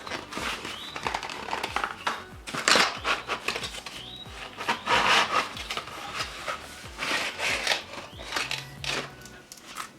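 Rustling, rubbing and sharp clicks from a mini Bluetooth keyboard and its packaging being handled during unboxing, with noisy bursts of rustling about three, five and seven seconds in. Background music with a steady beat plays underneath.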